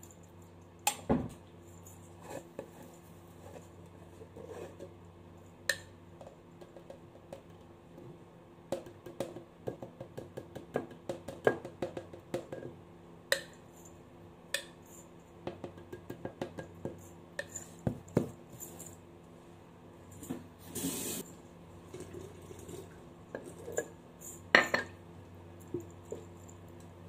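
Clinks, taps and knocks of a glass jar, a plastic flour tub and its screw lid being handled on a stone benchtop while feeding a sourdough starter. There is a short rushing hiss about two-thirds of the way through, and a faint steady hum runs underneath.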